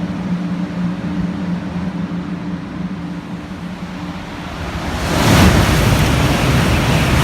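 Steady hum, then about five seconds in the loud rushing noise of a Shinkansen train passing through the station at speed swells in and holds.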